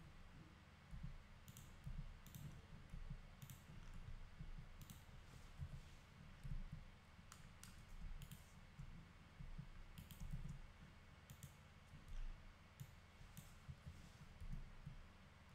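Scattered, irregular clicks of a computer mouse and keyboard keys, more than a dozen of them, over a faint low rumble.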